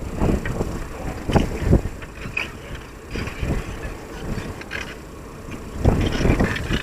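Strong wind buffeting the microphone in irregular low gusts, heaviest about six seconds in.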